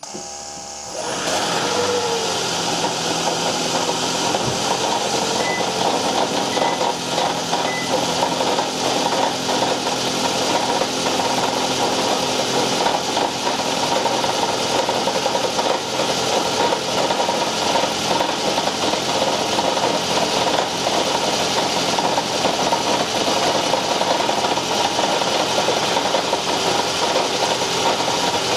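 2010 Toyota Camry Hybrid's 2.4-litre four-cylinder petrol engine starting up: the sound comes in within the first second or so, then the engine runs steadily and loudly. This is the start-up engine noise that the owner is recording to show.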